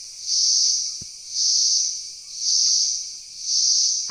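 Forest insects calling in a loud, high-pitched pulsing chorus that swells and fades about once a second.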